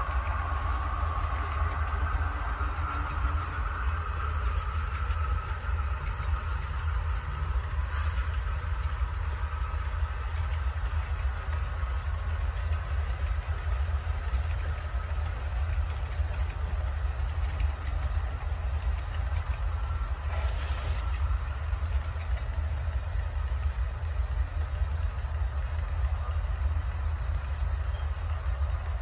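HO-scale Athearn blue box model diesel locomotives running on the layout track, giving a steady low rumble with running noise.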